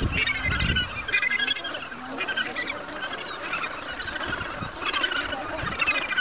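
Australasian gannet colony calling: many harsh, honking calls overlapping at once throughout.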